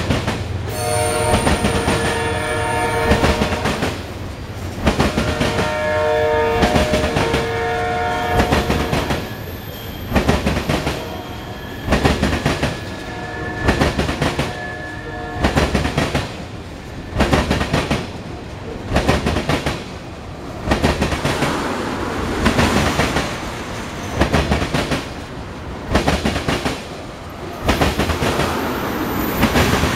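Freight train of tank cars rolling past close by, the wheels clicking over the rail joints in a steady rhythm, a loud pulse about every two seconds. A locomotive horn sounds in two long blasts over the first nine seconds, and a thin high wheel squeal comes in briefly around the middle.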